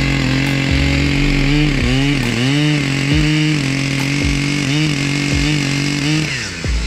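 Chainsaw engine running at high revs. Its pitch dips and recovers several times as it comes under load in the wood, then drops away near the end.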